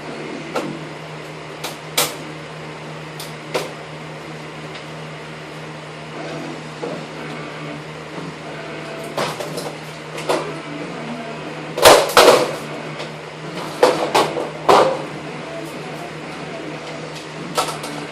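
Plastic clicks, knocks and clatter of an inkjet printer being taken apart by hand, with parts being pried and pulled out. The knocks are scattered, with a louder burst of clatter about twelve seconds in and another around fourteen to fifteen seconds, over a steady low hum.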